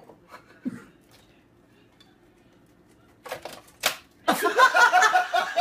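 A few faint knocks, then a quiet stretch; about three seconds in come several sharp clicks, and near the end a person's voice starts, the loudest sound.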